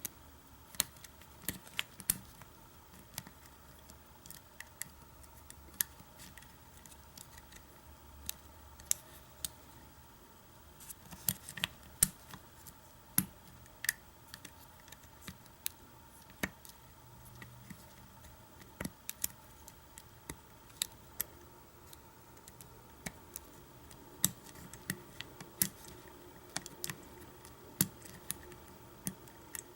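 Small metal clicks and scrapes of a lock pick and tension wrench working the pins inside an old Kwikset doorknob's pin-tumbler cylinder, coming irregularly, a few a second at most, sometimes in quick clusters.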